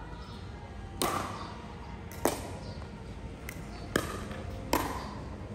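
Four sharp hits a little over a second apart, each with a brief ring: the back-and-forth strikes of a doubles rally.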